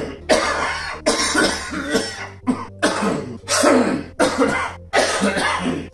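A man's genuine coughing fit from illness: about eight loud coughs in quick succession, each under a second long.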